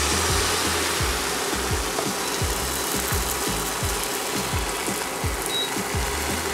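Crêpe batter sizzling in a very hot, lightly oiled non-stick frying pan as it is ladled in and starts to cook: a steady hiss, with background music and a regular beat underneath.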